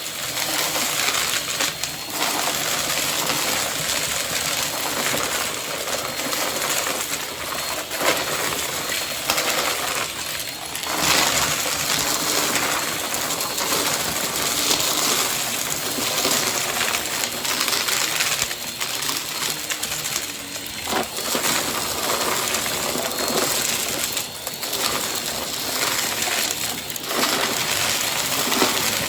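Vacuum cleaner running steadily while vacuuming, its level swelling and dipping slightly as it is pushed back and forth, with scattered clicks and rattles.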